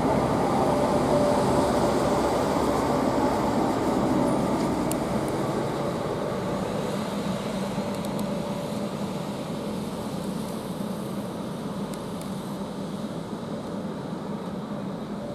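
Electric passenger train running at a station platform: a steady rumble with a faint hum that slowly fades away.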